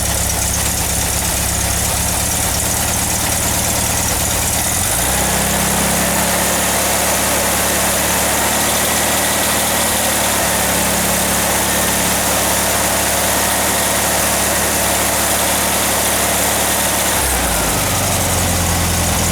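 A freshly built 1776 cc air-cooled Volkswagen flat-four with a single carburettor, stock cam and bazooka exhaust tips runs at idle. It is raised to a higher steady speed about five seconds in and drops back to idle near the end. The engine is not yet warmed up.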